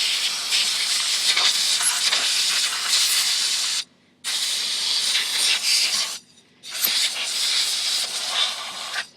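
Compressed-air blow gun hissing in long blasts, blowing cleaner and grime off chainsaw parts, with the air supply running low. It cuts off briefly twice, about four and six seconds in, and stops just before the end.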